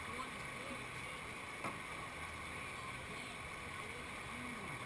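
Whitewater rushing steadily over a river wave and hole, with one short faint knock about a second and a half in.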